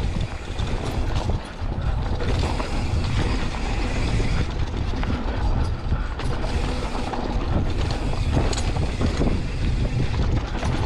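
Polygon Siskiu T8 mountain bike rattling and clicking as it rolls over a rough dirt trail, with a steady low rumble of wind on the handlebar-mounted microphone.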